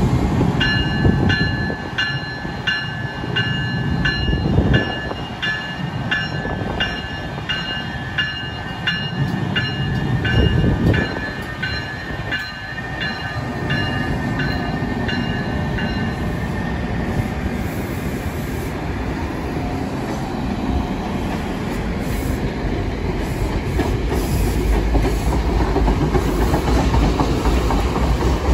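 New Jersey Transit passenger train with an ALP-46 electric locomotive running through the station. A bell rings about twice a second for roughly the first half, over the rumble and clatter of the wheels on the rails, which continue steadily and grow a little louder near the end as the coaches pass close by.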